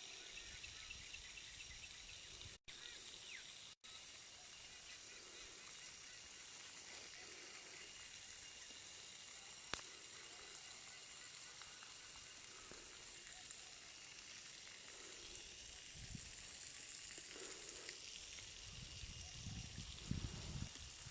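Faint, steady outdoor hiss with a few thin high steady tones running through it. The sound cuts out twice for a moment in the first four seconds, there is a single sharp click about ten seconds in, and low rumbles near the end sound like wind or handling on the microphone.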